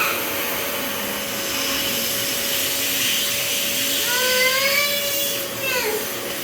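Vacuum cleaner running steadily with a constant motor whine. From about four seconds in, a high-pitched voice rises and then falls over it.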